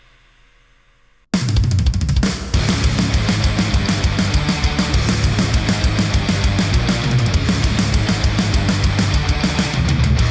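A rock track with a heavy, driving drum kit and cymbals, played back through a Sennheiser open-back headphone and picked up by microphones at the earcup. It starts suddenly, loud, about a second in, after a faint fading tail.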